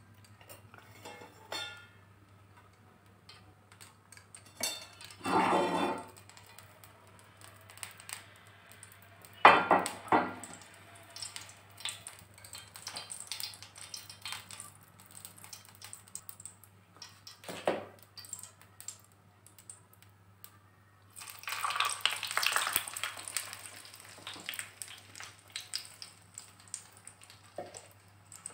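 A utensil clinking and scraping against a frying pan as oil and pitha batter are spread in it: scattered light clinks, two short loud scrapes, and a rougher scraping stretch of about three seconds near three-quarters through.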